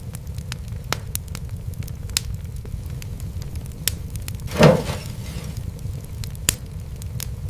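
Wood fire crackling: scattered sharp pops over a low steady rumble, with one louder, longer crackling burst about two-thirds of the way in.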